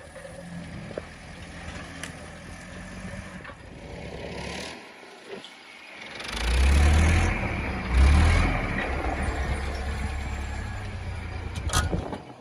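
A vehicle engine running steadily, dropping away briefly, then revved hard about six seconds in and again about eight seconds in and held at high revs before cutting off suddenly near the end.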